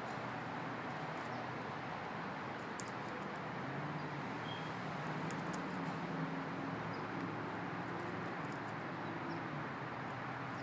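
Steady outdoor background noise with a faint low hum, and a few faint, short high ticks scattered through it.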